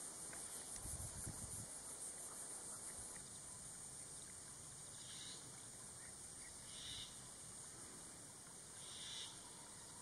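Faint, steady, high-pitched insect chirring in marsh grass, with four short, higher chirps in the second half.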